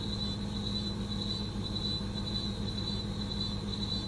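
Steady, high-pitched chorus of tropical forest insects, pulsing slightly, over the low steady hum of an idling truck engine.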